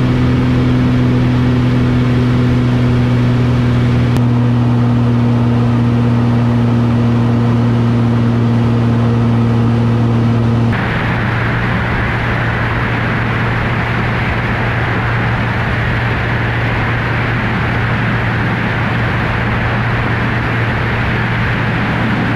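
Extra 300 aerobatic plane's piston engine and propeller running steadily in level flight, heard on board as a constant engine tone under a rush of airflow. About halfway through, the sound changes abruptly: the engine tone thins and a hissier rush of wind takes over.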